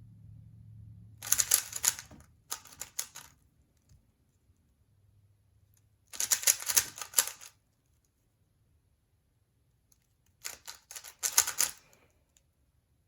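3x3 Rubik's cube being turned by hand: four quick bursts of rapid plastic clicking from layer turns, with pauses between them.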